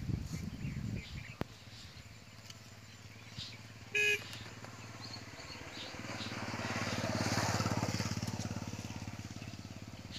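A motor vehicle passing by: a steady engine hum that grows louder to a peak about seven and a half seconds in and then fades. A short beep sounds about four seconds in.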